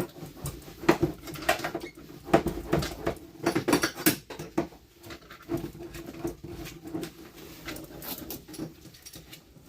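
Foil-backed sound-deadening mat being pressed onto a car panel with a hand roller: irregular crinkling and clicking of the foil and roller.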